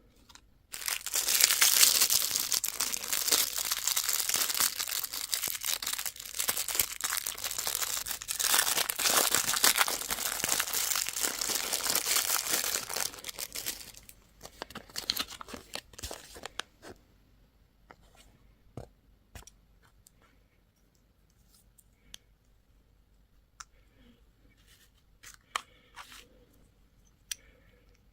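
Candy packaging being torn open and crinkled by hand, dense crinkling for about thirteen seconds, dying away into a few light clicks and taps.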